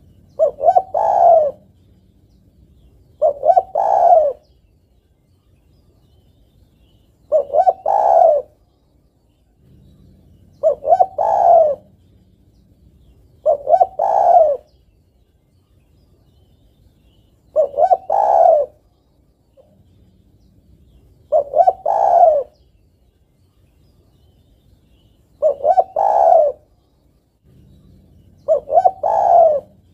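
Female spotted dove cooing to call a male: nine short phrases of a few quick notes each, one about every three to four seconds.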